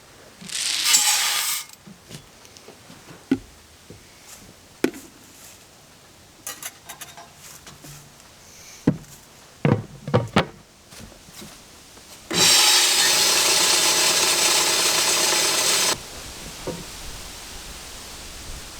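Homemade grain grinder built from table saw parts, running with a round toothed saw blade as its cutter: loud steady machine noise with a hum for about three and a half seconds near the end, dropping off suddenly. Before it come a short rush of noise about a second in and scattered knocks and clicks. This blade fails to cut the corn kernels.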